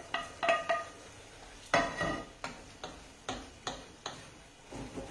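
A spoon knocking and scraping against metal pans while sautéed tomatoes are tipped out of a small pan into a larger one and stirred in. It comes as a run of sharp clicks, some with a short metallic ring, the loudest a little under two seconds in.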